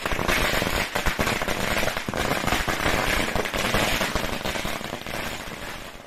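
Firecrackers going off in a rapid, continuous run of crackling pops, easing off a little near the end.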